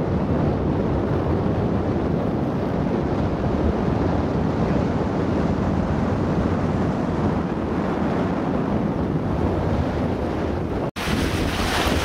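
Steady wind buffeting the microphone during a parasail flight high over the sea, a rumbling rush with no other distinct sound. About eleven seconds in it cuts out for an instant and comes back brighter and hissier.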